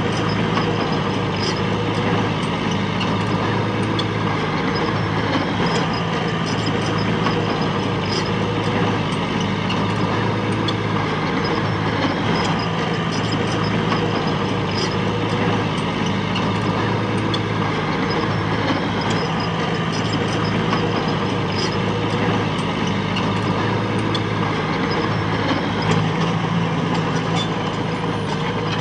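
Heavy-machine diesel engine running steadily at a constant speed, with scattered light clicks over it.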